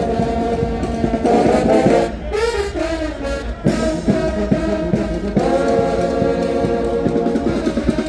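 Mummers brass band playing loud sustained chords. About two seconds in, the full chords drop away for a short sliding, wavering run, then the ensemble comes back in.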